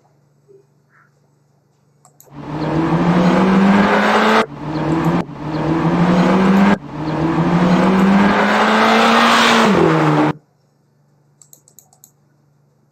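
Car engine sound effect accelerating hard through the gears: the engine pitch climbs, drops back at each of three shifts, climbs again, then falls briefly just before the sound cuts off suddenly.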